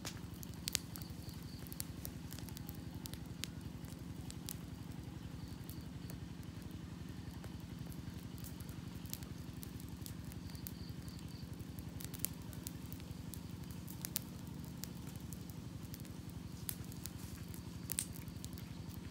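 Wood campfire burning, with sharp crackles and pops at irregular intervals over a steady low rumble.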